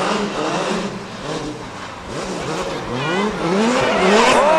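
Skoda Fabia S2000 rally car's engine revving hard, its pitch rising and falling with gear changes and throttle lifts. About three seconds in the engine note climbs and gets louder as the car slides sideways through the snow.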